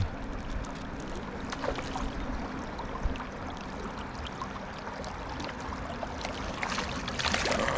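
Steady rush of fast-flowing river water, with a few faint clicks.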